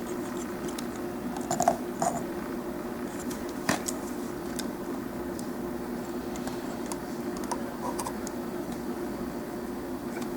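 Scattered light clicks and taps of a plastic action figure being handled and turned, over a steady low hum.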